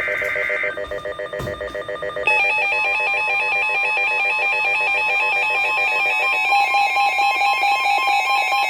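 Weather radio emergency alert tones announcing a severe thunderstorm warning. A burst of digital alert-header data tones ends within the first second under a pulsing electronic alarm, which gives way about two seconds in to a louder, rapidly warbling alarm over a steady tone.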